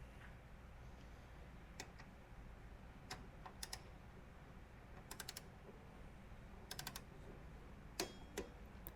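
Faint clicking of a ratchet torque wrench tightening a small 13 mm bolt, in a few quick runs of three or four clicks with single clicks between.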